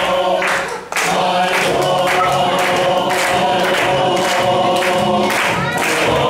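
Several voices singing a song together, with a brief drop in the singing just under a second in.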